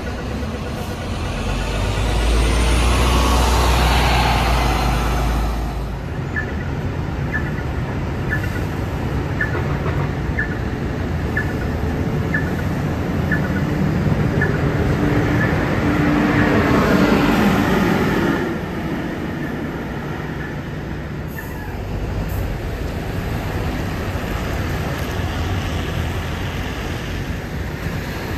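Double-decker buses running and moving off through a bus interchange, their diesel engines rumbling steadily. Two buses pass loudly, about two seconds in and again around fifteen seconds in, the first with a whine that rises and falls. Between the passes a light ticking comes about twice a second.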